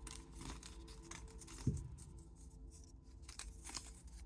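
Faint rustling and crinkling of small folded paper message slips being taken out and unfolded by hand, with one short low thump a little before halfway.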